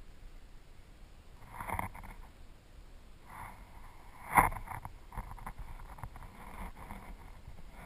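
Muffled river-water noise picked up by an underwater camera resting on the gravel riverbed. There is one sharp knock about four and a half seconds in, and scattered small clicks after it.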